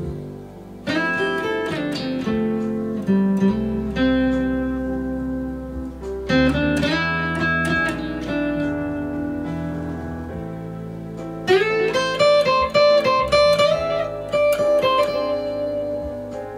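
Paul Reed Smith Hollow Body II guitar playing a picked melody with chords over held low notes, with quick runs of notes about a second in, around six and a half seconds in, and again from about eleven seconds on.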